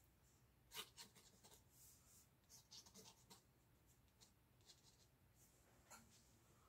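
Faint scratching of a steel dip pen nib on paper: a quick run of short ink strokes, then a few scattered lighter strokes.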